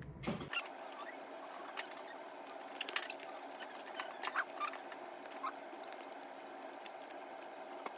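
Scattered light clicks and taps from spoon-feeding, with a few short high squeaks from a seven-month-old baby, over a steady low hum.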